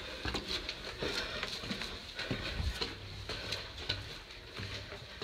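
Footsteps on stairs littered with debris: a quick, irregular run of steps and gritty scuffs.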